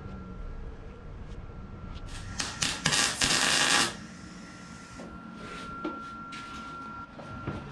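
A few sharp clicks and knocks of metal parts being handled and fitted on a custom chopper frame, then a hissing, crackling burst about a second long near the middle, with a faint steady whine underneath.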